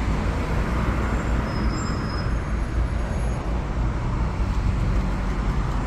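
Steady street traffic noise, a low rumble of passing road vehicles, with a brief faint high squeal about two seconds in.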